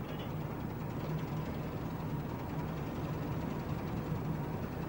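Lifeboat's engine running with a steady low hum.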